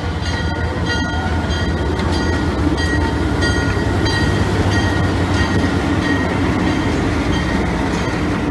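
Alco C424 diesel-electric locomotive idling with a steady low rumble and a faint high whine, the train standing at the station.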